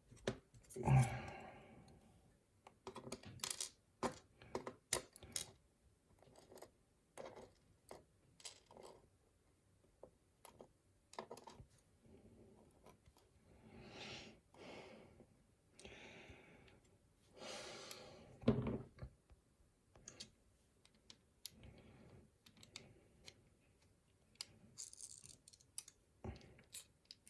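Small metal lock pins and parts being handled on a work surface: irregular light clicks and taps, with a few short rustling scrapes.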